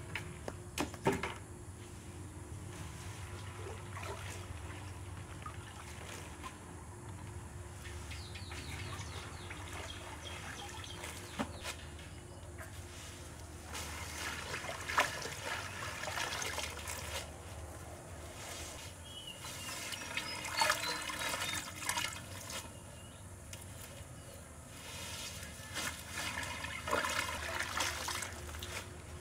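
Water trickling and splashing, with a few louder splashy stretches and some clicks and knocks, as things are handled in water.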